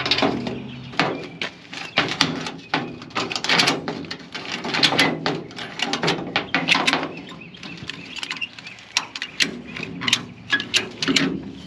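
Ratchet tie-down strap being cranked tight on a car trailer, the ratchet handle clicking in quick runs of sharp clicks with short pauses between strokes.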